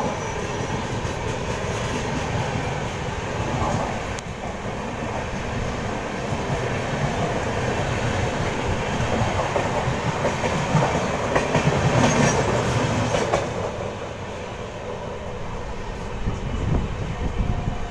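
Indian Railways express train running on the track, heard from on board: a steady rumble with the rattle and clatter of wheels on the rails.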